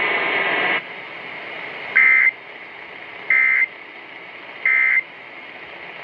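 Emergency Alert System end-of-message data bursts, heard through a portable radio's speaker: three short, harsh two-tone squawks about a second and a half apart, marking the close of the alert. Under a second in, the louder hiss of the preceding message audio cuts off.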